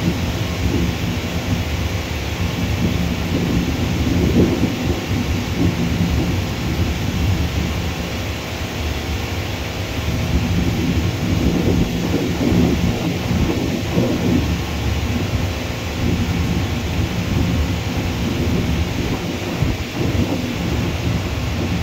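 Twin-engine jet airliner on its takeoff roll and lifting off: a steady low rumble of the engines at takeoff power that swells and eases unevenly.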